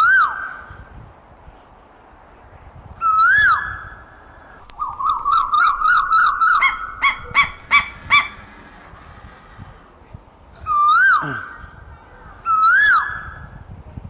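Asian koel calling: loud single notes that rise and then drop, heard four times. Between them comes a fast run of repeated notes that speeds up and ends about 8 seconds in.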